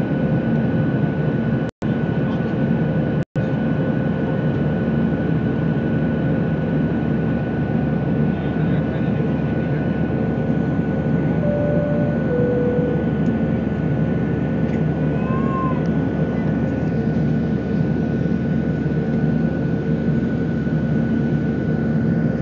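Steady noise of a Boeing 737-800's CFM56 jet engines heard from inside the cabin, with a steady whine above the rumble. The sound cuts out completely twice, very briefly, in the first few seconds.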